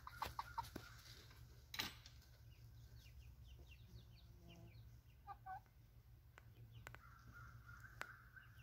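Faint scattered peeps and short soft calls from a flock of young chickens, with one sharp click about two seconds in and a steady low hum underneath.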